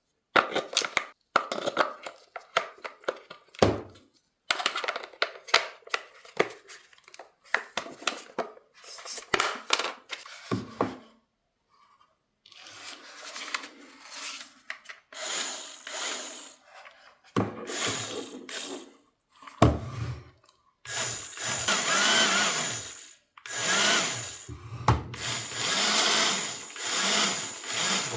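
A small electric toy motor whirring in bursts of a few seconds each, with clicks and rustling from handling before it.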